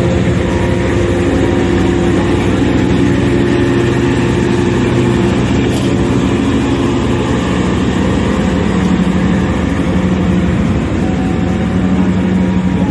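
CC 201 diesel-electric locomotive running with the train, a steady engine drone over a noisy rumble. Its tones shift about halfway through.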